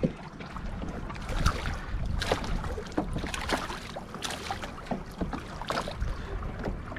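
Water splashing and slapping against a kayak hull in irregular strokes, over a low steady rumble of wind.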